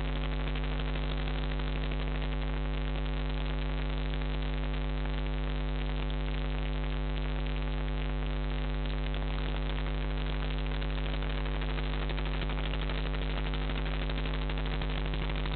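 Steady electrical mains hum with a buzzing stack of overtones and a faint hiss above it, on the nest-box camera's audio.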